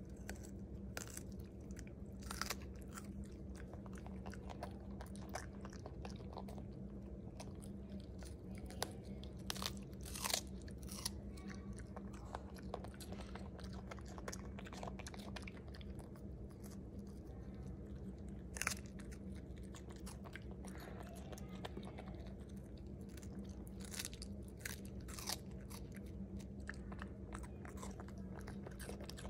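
A puppy biting and chewing raw red bell pepper: irregular crisp crunches throughout, the loudest about a third of the way in and again a little past halfway, over a steady low hum.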